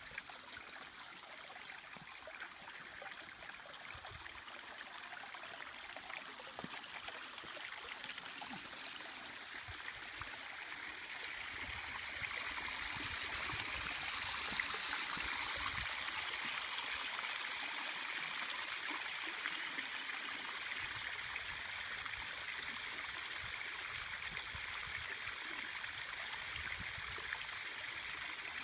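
Small mountain stream trickling and splashing over granite rock, a steady rush of water that grows louder about a third of the way in and then eases off slightly.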